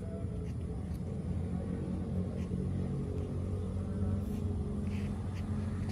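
A steady low mechanical rumble with a hum at a few fixed pitches, and a few faint short ticks over it.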